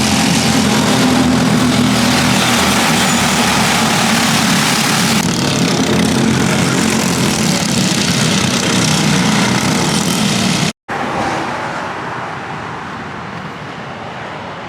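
Racing go-kart engines running hard on track, loud and steady for about ten seconds. After an abrupt cut, the engine noise continues much quieter.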